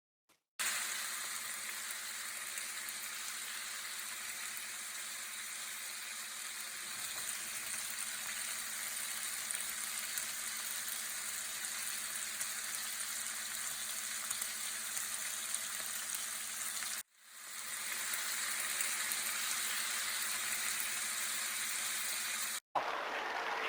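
Steady sizzling, crackling hiss, like food frying. It drops out briefly about seventeen seconds in, then comes back and cuts off again near the end.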